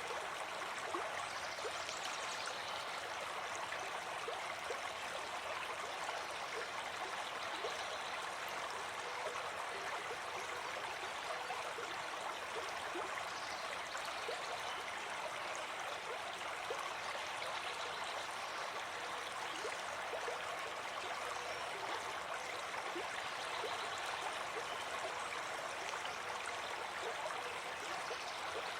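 Running water flowing steadily, with a constant splashing rush and light gurgling.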